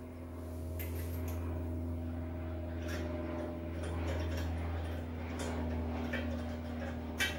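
A steady low hum with light metallic clicks and ticks as a bare aftermarket wheel is handled on the car's front hub, the sharpest click near the end.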